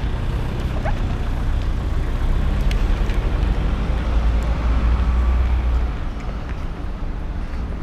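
Outdoor street noise dominated by a steady low rumble that eases about six seconds in, with a few faint clicks.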